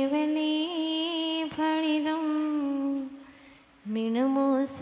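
A woman's solo voice chanting a Jain devotional invocation, holding one long, slightly wavering note. She breaks for a breath about three seconds in, then slides up into the next phrase.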